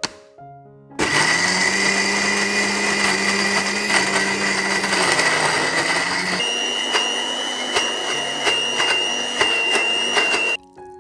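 Countertop blender running, grinding chillies, aromatics and oil into a spice paste. It starts suddenly about a second in, its motor tone shifts about halfway through, and it cuts off abruptly just before the end.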